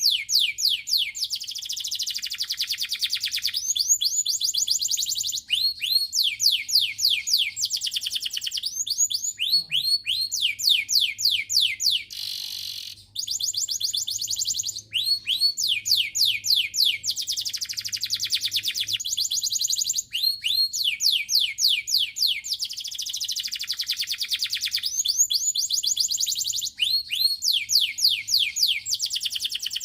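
Domestic canary singing continuously: phrases of rapidly repeated downward-sweeping notes alternating with fast, dense trills, with only momentary breaks.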